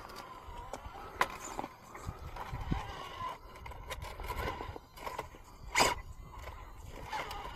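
RC rock crawler working over rock: a faint electric motor whine that wavers in pitch with the throttle, with tyres and chassis scraping and ticking on the rock and two sharp knocks, about a second in and near the end, the later one the loudest.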